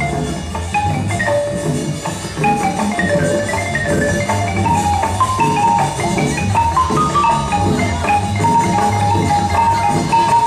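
Dance music played loud over a club sound system: a melody of short, bright notes stepping up and down over a steady bass beat.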